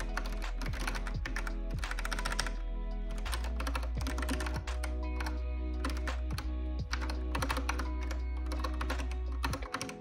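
Typing on a Kinesis Advantage 360 Pro split, contoured mechanical keyboard: rapid clusters of key clicks with short pauses between them. Lofi background music with a deep bass and held chords plays underneath, its bass dropping out near the end.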